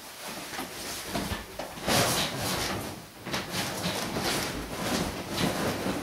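Bedding rustling and shuffling as a person climbs into bed and pulls the blanket over, in a run of irregular scrapes and rustles.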